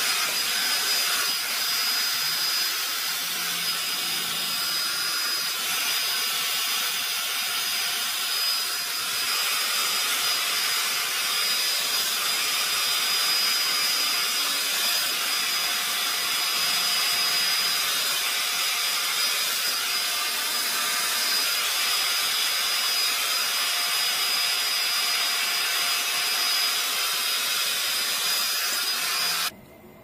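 Conair InfiniPro hot air spin brush running, a steady rush of blown air with a thin high motor whine; it cuts off abruptly near the end.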